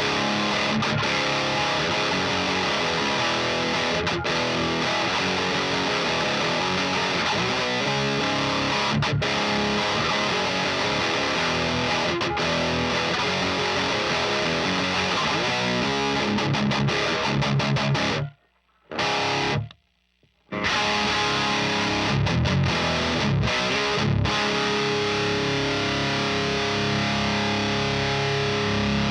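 Heavily distorted electric guitar with DiMarzio D-Activator pickups, played through an Abominable Hellmouth boost into a Diezel VH4 preamp pedal and the EL34 power section of a Rivera Knucklehead Reverb amp: riffing, with held ringing chords near the end. The playing stops dead twice, briefly, a little past halfway.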